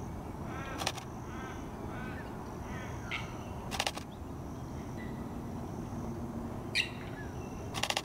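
Canon EOS R7 camera shutter firing three short bursts of rapid clicks, a few seconds apart, over faint chirping of small birds.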